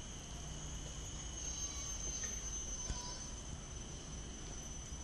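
Insects droning outdoors: a steady high-pitched whine held at two pitches, over a faint low rumble.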